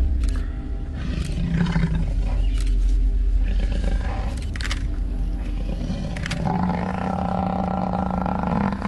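Lions growling over a buffalo they are feeding on, a deep low rumble with a few sharp clicks. A long, steady call is held for about two seconds near the end.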